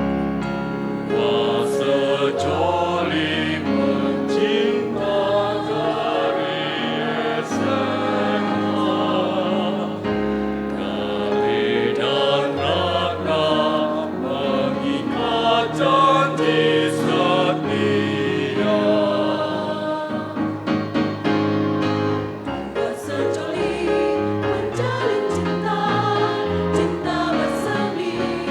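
A choir singing, accompanied by a keyboard playing held chords and bass notes.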